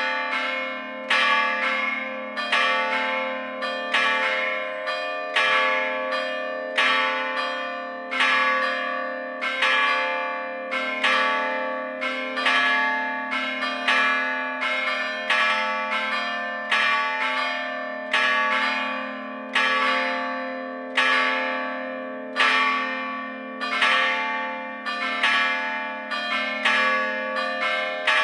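Three church bells cast in Gescher, struck in place by hammers rather than swung, ringing together: a steady, uneven run of strokes, a little more than one a second, each stroke fading while the bells' hum carries on underneath.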